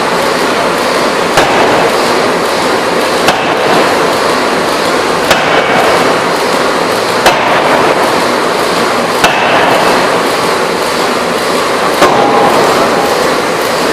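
Electro-hydraulic open die forging hammer striking a workpiece, six sharp blows about two seconds apart, over a constant loud noise.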